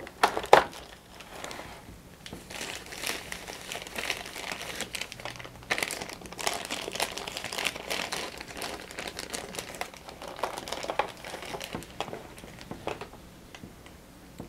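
Clear plastic bag crinkling and rustling in irregular bursts as a handheld two-way radio is unwrapped from it, after a sharp click about half a second in.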